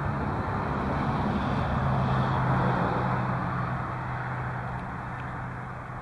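A road vehicle passing by: its engine and tyre noise swell to a peak midway and then fade away.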